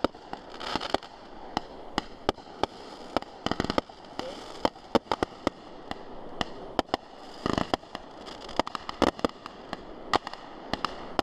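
Fireworks display going off: irregular sharp bangs with clusters of crackling, the densest volleys about four, seven and a half, nine and ten seconds in.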